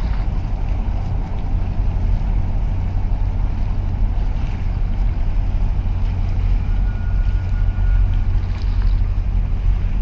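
Steady low rumble of a large container ship passing close by, mixed with wind on the microphone.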